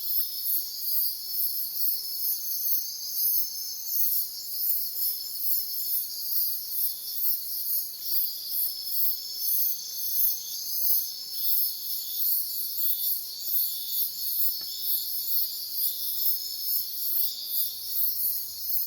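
Night chorus of crickets and other insects: a high pulsing chirp about twice a second over a layer of steady high trills.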